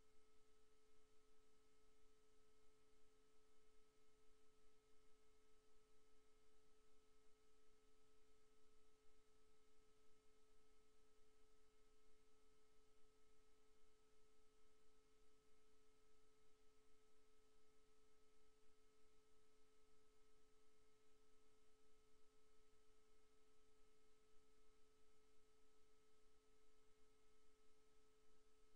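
Near silence: a faint steady hum of several fixed pitches over light hiss, with no change throughout.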